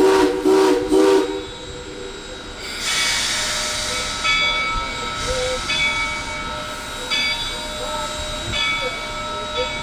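Steam locomotive whistle giving three short toots, followed by a steady hiss and the running noise of the train, with short high squeals recurring about once a second.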